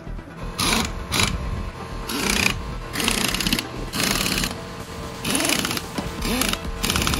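Pneumatic impact wrench running on a Land Rover's wheel nuts in about eight short bursts, hissing and rattling, with background music under it.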